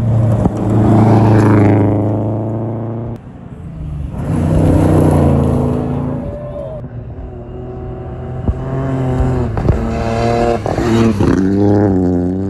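Rally cars at full throttle on a gravel stage, the engine note climbing and dropping through gear changes, with a few sharp cracks. Several short passes are cut together, so the engine sound breaks off abruptly about three seconds in.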